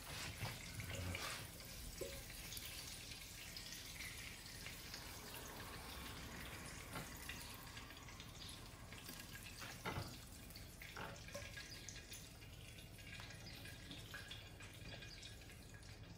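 Faint kitchen sounds: a few light clicks and clinks, the first from metal tongs setting mushrooms onto a plate, over a low steady hiss.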